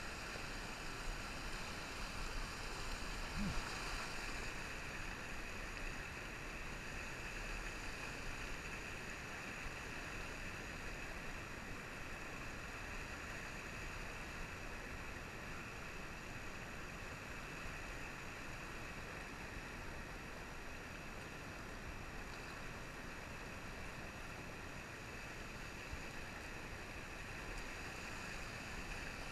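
Rapids of a trout stream rushing over rocks, a steady, even hiss of moving water.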